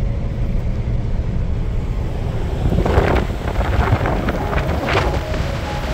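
Wind buffeting the microphone over the low rumble of a vehicle driving along a sand beach. From about three seconds in, louder gusts of wind hit the microphone.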